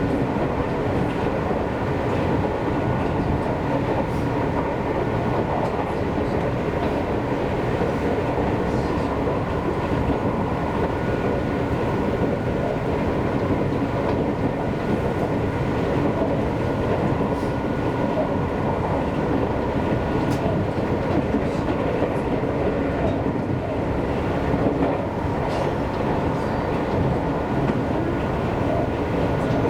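Seibu Railway electric commuter train running between stations, heard from on board: a steady rumble of wheels on rail with a faint steady whine above it and occasional light rail-joint clicks.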